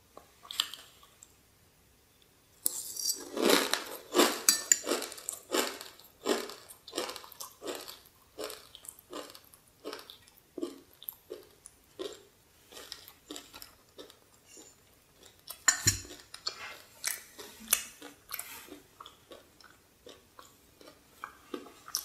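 Crunching and chewing a mouthful of dry, uncooked Hao Hao instant noodles, loud at first and then in steady chews about two a second. Partway through, a metal spoon knocks against the glass bowl.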